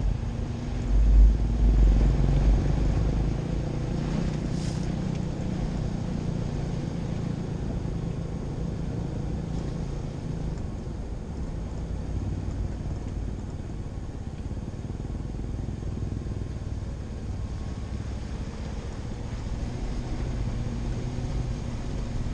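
Vehicle driving slowly along a rutted dirt track: a steady low engine and tyre rumble picked up by a camera mounted outside the vehicle. A heavy low surge of rumble comes about a second in and lasts a couple of seconds.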